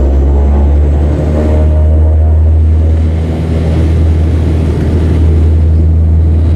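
Dash 8 Q300 turboprop engine and propeller heard from the cabin beside the wing, a loud, steady, deep propeller drone with engine noise over it, as the aircraft rolls down the runway under power.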